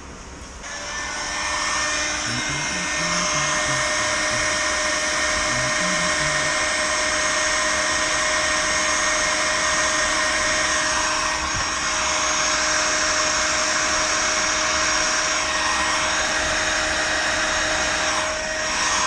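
Electric heat gun switched on about a second in and running steadily: a constant rush of hot air from its fan with a steady motor hum, used for shrinking heat shrink tubing onto a wiring loom.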